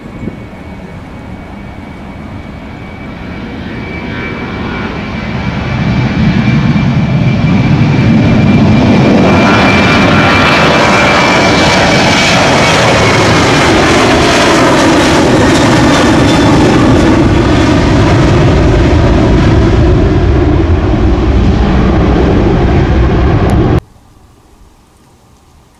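Twin jet engines of a Boeing 737 spooling up to takeoff thrust and accelerating down the runway: a steady whine grows into a loud, sustained jet noise that sweeps past with its tones falling in pitch. It cuts off abruptly near the end.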